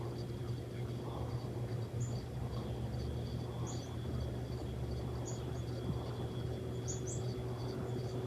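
Ceiling fan running with a steady motor hum, with a few short high chirps now and then.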